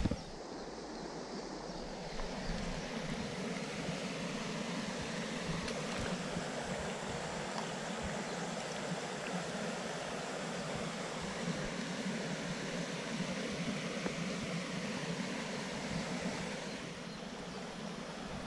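A small creek's water running steadily.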